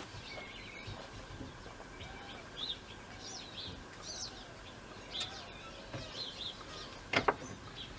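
Birds chirping and calling steadily in the background, with short high chirps and lower repeated calls. One sharp knock sounds about seven seconds in.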